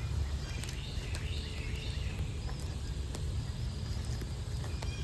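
Outdoor woodland ambience: birds calling faintly, with a few sharp crackles from a burning oak wood fire over a steady low rumble.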